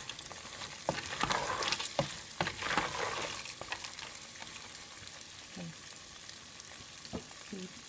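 Dried yellow corn kernels frying in oil in an aluminium pot, stirred with a wooden spoon: the kernels rattle and scrape over a steady sizzle, with sharp knocks. The stirring dies down about halfway, leaving a quieter sizzle with a few sharp clicks as the kernels begin to pop.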